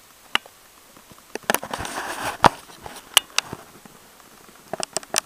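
Handling noise from a hand holding and turning a small metal badge close to the microphone: scattered light clicks, a brief rustle about two seconds in, and a quick run of clicks near the end.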